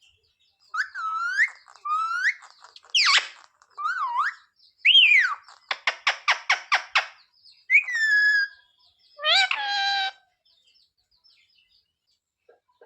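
Pet Indian ringneck parakeet calling: a string of short whistled calls that glide up and down, with a fast rattling chatter of about eight pulses a second in the middle.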